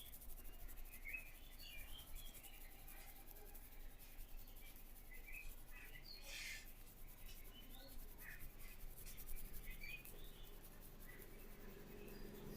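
Hands rubbing and massaging a head of hair and scalp, a faint dry rustling friction with one louder rustle about six seconds in, while small birds chirp faintly in the background.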